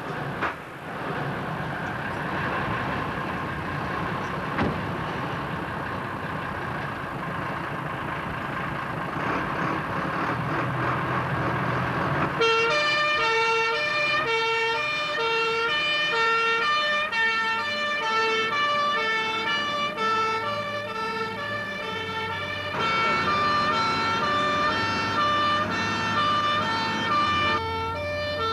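A fire engine runs with a steady noisy rumble. About twelve seconds in, its two-tone siren starts and switches rapidly back and forth between two notes.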